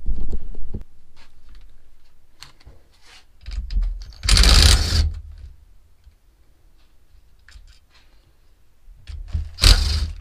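Cordless impact wrench running in two short bursts, about four seconds in and again near the end, undoing the bolts on a Honda K24 oil pump and balancer-shaft housing. Small clicks and taps in between.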